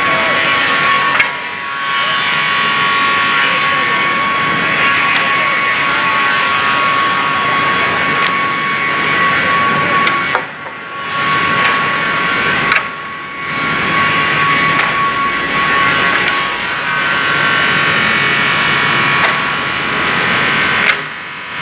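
Multi-blade rip saw cutting wood, a loud steady whine with a constant high tone. It dips briefly four times: just over a second in, twice around the middle and near the end.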